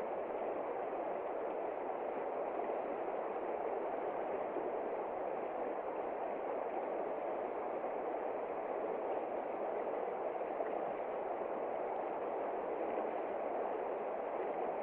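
River water flowing, a steady, even rushing noise.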